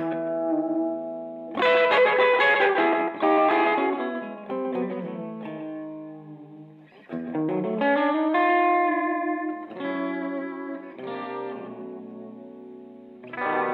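Gretsch G5422 hollow-body electric guitar playing a rockabilly part: chords and single notes struck and left to ring and fade, with a note bent upward about seven seconds in.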